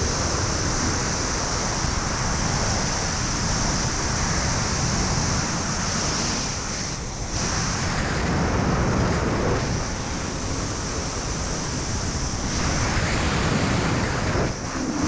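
Steady rushing wind noise from freefall airflow buffeting a helmet-mounted camera's microphone during a wingsuit flight. It dips briefly about seven seconds in.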